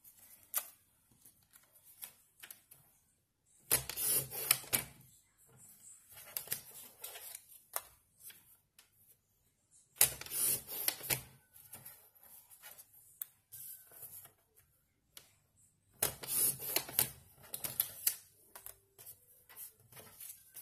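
Paper and craft materials being handled: three bursts of rapid clicking and rustling, about four, ten and sixteen seconds in, with scattered single clicks between.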